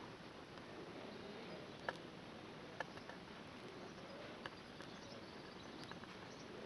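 Faint outdoor background hiss with a few isolated light clicks, spaced about a second apart.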